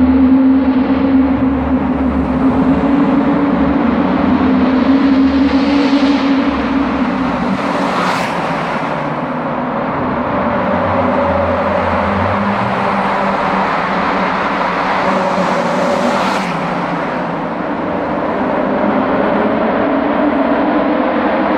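Honda car engines running hard, echoing through a road tunnel as a steady loud drone, with two brief sharp noises about eight seconds apart.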